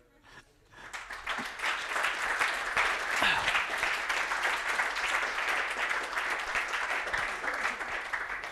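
Audience applauding, starting about a second in and dying away at the end.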